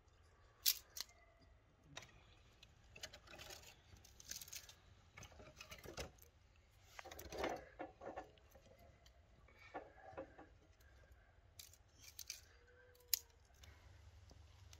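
Dry twigs and kindling snapping, rustling and clicking in a metal barbecue grill as a fire is laid and catches, in irregular short bursts with two sharp clicks, one just after the start and one near the end.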